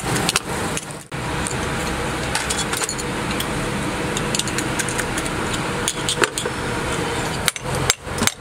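Metal parts of an air impact wrench clicking and clinking as the housing is handled and fitted onto the body, over a steady background noise.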